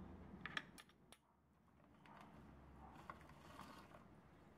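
Faint clicks and taps of crackers and a spoon against a plastic container and bowl while coffee-dipped crackers are laid in, with a few sharp clicks about half a second in and softer rustling and small ticks later.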